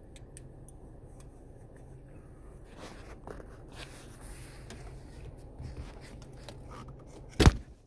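Hands twisting and pulling on a 2016 Chevrolet Malibu's gear shift knob, with low rubbing and scraping of plastic, then a single sharp, loud pop near the end as the knob snaps free of the shifter lever.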